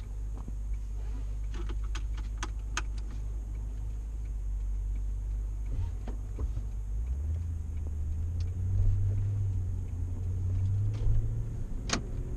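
Low, steady rumble of a moving vehicle heard from inside the cabin, growing louder about seven seconds in, with a few light clicks and one sharper click near the end.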